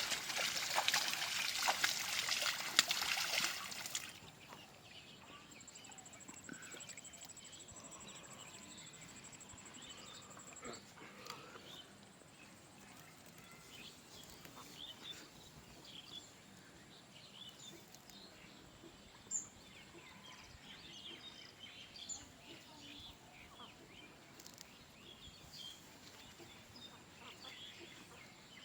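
Water splashing and sloshing loudly for about four seconds, then faint outdoor ambience with a low trickle and scattered small chirps.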